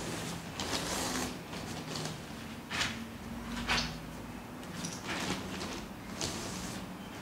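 Short rustling and scraping handling noises, about six in all, spaced a second or so apart, as gloved hands squeeze dye from an applicator bottle onto tied cloth lying on a plastic sheet.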